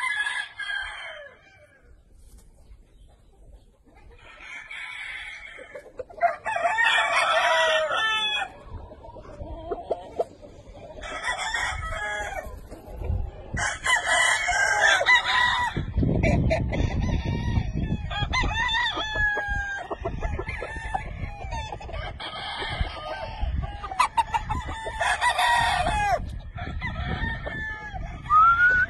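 Gamefowl roosters crowing again and again, each crow a long call of one to two seconds, with clucking between them. A low rumble runs under the second half.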